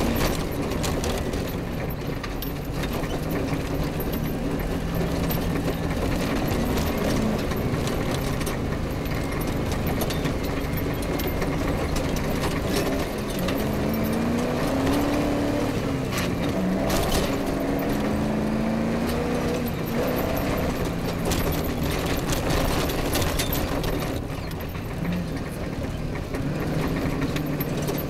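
Off-road rally vehicle's engine running hard, its revs rising and falling again and again as it drives over rough grassland, with occasional sharp knocks from the vehicle over the bumps.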